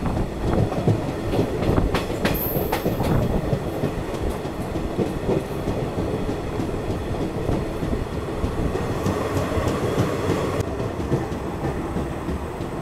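DEMU passenger train running on the rails, heard from the open coach door, its wheels clattering over rail joints with a few sharp clicks in the first few seconds.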